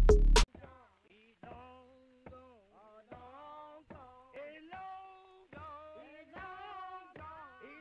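Soundtrack music: a loud electronic drum beat cuts off about half a second in, then a song continues with a singing voice over faint backing.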